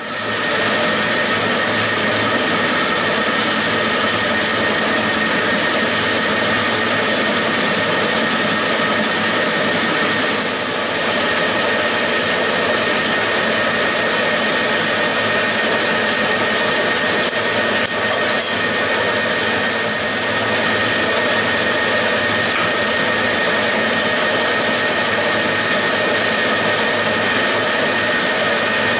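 Metal lathe running at a steady speed, its chuck spinning a short steel bar while it is turned down. The machine makes a loud, even noise with a steady high whine through it.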